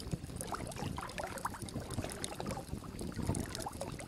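Moving water: a steady wash of water with small bubbling plinks throughout.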